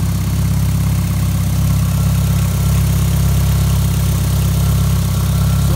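Turbocharged Honda four-cylinder engine in a Civic idling steadily, breathing through a newly fitted Speed Factory stainless ramhorn exhaust manifold.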